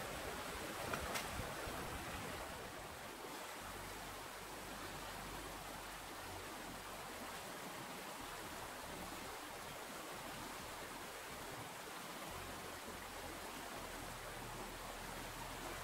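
Steady rush of a fast-flowing river. A couple of light knocks sound about a second in.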